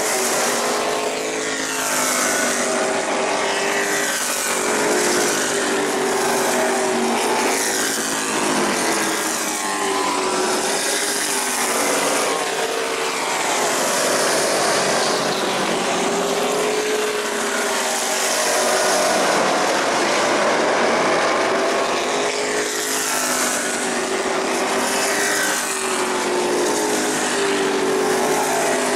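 Several short-track stock cars racing, their engines rising in pitch as they accelerate and falling as they lift, again and again every few seconds, with the engines overlapping one another.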